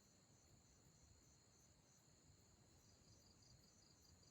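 Near silence with faint, steady insect chirping in a high, evenly pulsing chorus.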